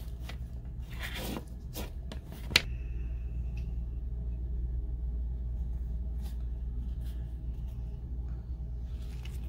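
Hands handling a Coach Dreamer coated-canvas card case: rustling and soft clicks, with one sharp click about two and a half seconds in, over a steady low hum.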